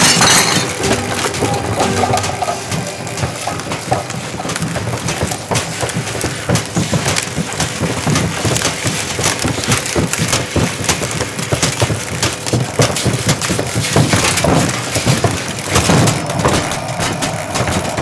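A homemade vacuum cleaner built onto a push lawnmower running wild, with a loud, continuous clatter of knocks, cracks and breaking crockery and wood.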